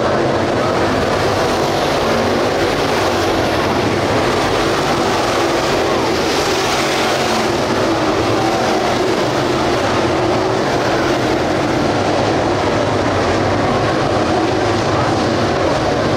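A pack of dirt-track race cars with GM 602 crate V8 engines running at racing speed around the oval, a steady loud engine din. It swells about six to eight seconds in as the cars come through the turn nearest the grandstand.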